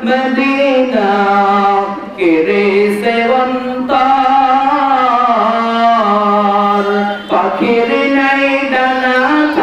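A man singing a Bengali Islamic song (gojol) solo into a microphone, drawing out long, wavering held notes. There are two short breaths between phrases, about two seconds in and about seven seconds in.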